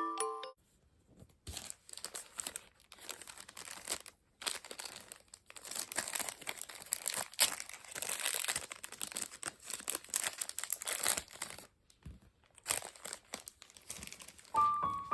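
Toothbrush bristles scrubbing a small dog's teeth: irregular scratchy, crackly brushing in spells, with short pauses. Music box–like background music ends at the start and comes back near the end.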